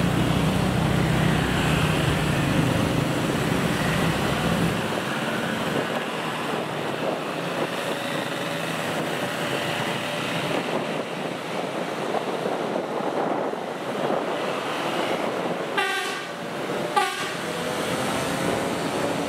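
Rail track-measuring inspection train running along street-level track amid road traffic. A low engine rumble drops away about five seconds in, and two short horn toots sound a second apart near the end.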